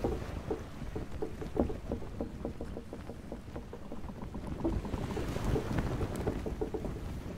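Small boat moving over choppy water: waves splash and slap irregularly against the hull over a low steady rumble.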